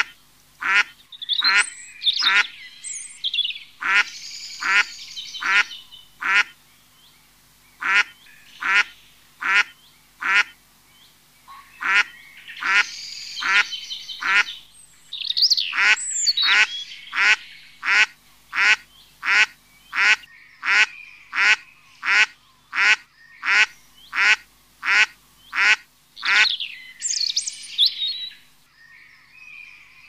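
A waterbird calling: runs of short, evenly spaced calls, a little more than one a second, broken by short pauses, with other birds' higher chattering now and then.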